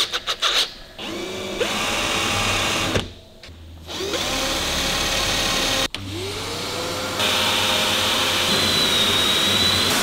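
Cordless drill drilling holes in a car's steel fuel tank: a few sharp clicks, then three runs of the motor, each rising in pitch as it spins up, the last one the longest at about four seconds.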